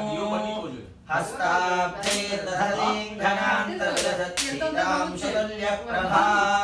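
Male voices chanting Sanskrit mantras in a steady recitation, with a short break about a second in.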